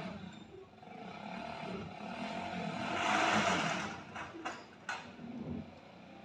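Motorcycle engine running as the bike eases off at walking pace. A rushing noise rises and falls, loudest about three seconds in, and two sharp clicks come near the end.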